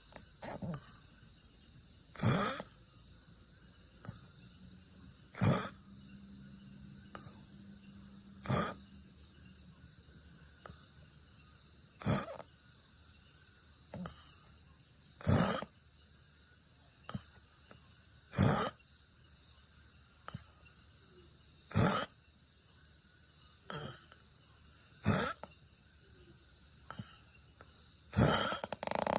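A person snoring softly: short snorting breaths about every three seconds, each followed by a fainter one, then a louder, longer snore near the end.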